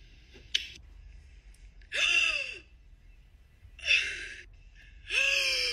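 A person gasping loudly three times, sharp breathy intakes of breath with a voiced edge: the 'gasp challenge', done to startle a cat. A short click comes about half a second in.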